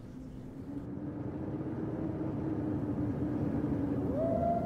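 Dark ambient rumble slowly swelling in loudness under a faint steady hum. About four seconds in, a siren-like wail glides up in pitch and holds.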